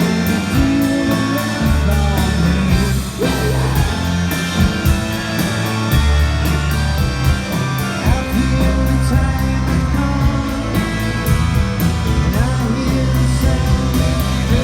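Live psychedelic rock band playing a song: drums with a steady, fast cymbal beat, bass and guitars, with singing at times.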